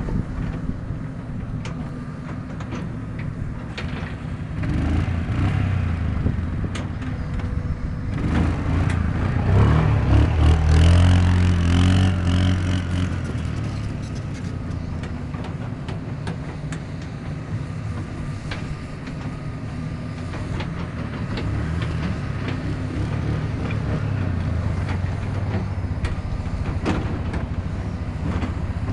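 Yamaha Grizzly 350 ATV's single-cylinder four-stroke engine running under way, its revs rising and falling. It is loudest and highest-revving from about nine to thirteen seconds in, and there are scattered sharp clicks and knocks.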